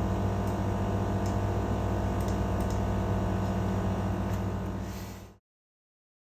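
Steady low electrical hum with a few faint ticks over it, fading out to silence a little after five seconds in.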